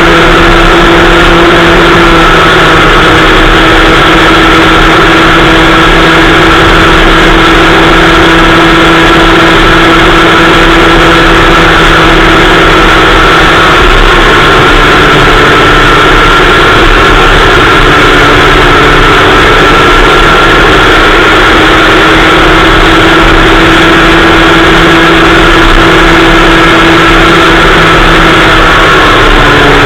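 Kid kart's small two-stroke engine heard onboard, running at a steady high pitch under racing throttle. Its pitch dips slightly about halfway through and again near the end, as the kart slows for corners.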